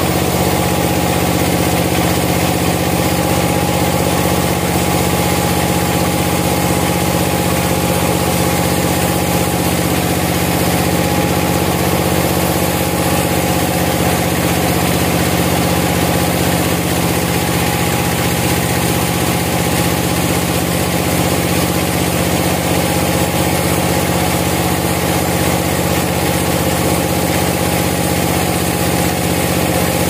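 Band sawmill running steadily, its blade cutting lengthwise through a large hardwood beam, giving an even machine drone with several steady tones.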